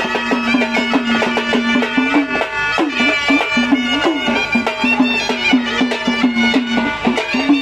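Maharashtrian folk music played on the sambal, a pair of stick-beaten drums, in a dense fast rhythm. A sustained pitched melody line holds steady over the drumming and bends upward now and then.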